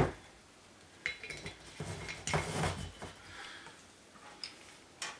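A glass whisky bottle set down on a wooden desk with one sharp knock, followed by lighter clinks and knocks of ice in a glass tumbler as it is handled.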